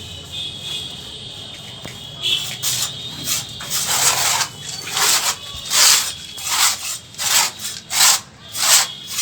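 A hand tool scraped back and forth over a hard surface in steady rasping strokes, about one and a half a second, starting about two seconds in.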